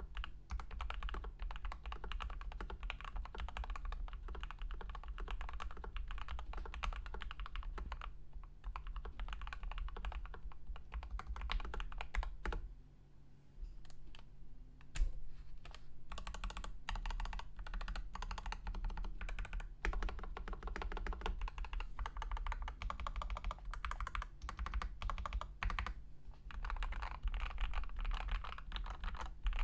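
Fast typing on a mechanical keyboard with Gateron Oil King linear switches and Cherry-profile keycaps: a dense run of keystrokes and bottom-outs, with a brief pause about halfway through followed by a single louder key strike.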